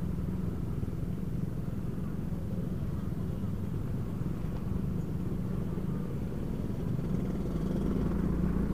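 Motorcycle engine running at low speed in slow, crowded traffic, a steady low hum, with other motorbikes and cars around.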